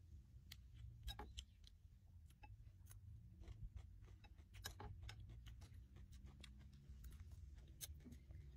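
Faint eating sounds: pickled banana stem being chewed, with scattered sharp clicks of a spoon and chopsticks against the rice plate and bowl, over a low steady rumble.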